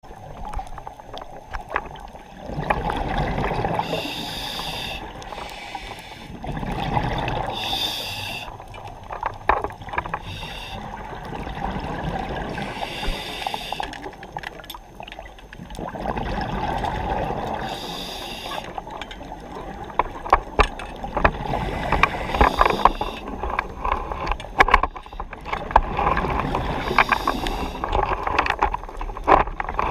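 A scuba diver's regulator breathing underwater: a cycle of breath noise and a hissing, bubbling burst about every four to five seconds, over a steady underwater rumble. Sharp crackling clicks grow more frequent in the second half.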